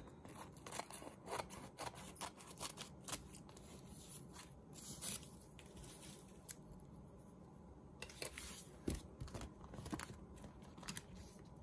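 Scissors snipping through paper in a run of short, quiet cuts along the edge of a sheet with newspaper strips glued on. The paper sheet also rustles as it is handled and turned over.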